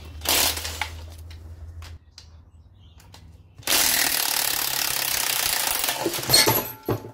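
Cordless impact wrench hammering: a short burst about half a second in, then a longer run of about three seconds, loosening the bolts that hold the transmission to the engine.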